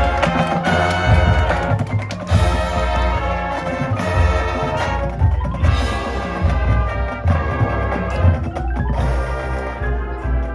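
High school marching band playing its field show: brass ensemble over drums and percussion.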